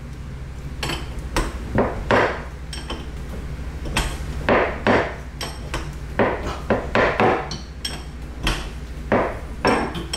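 Metal tools and fittings clinking and knocking in a series of irregular short clicks as the dishwasher's steel-braided water supply line is fastened and tightened onto the shutoff valve under the sink, over a steady low hum.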